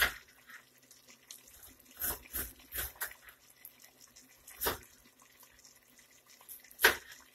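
A handful of separate sharp knocks and clicks, about seven in all, the loudest near the end.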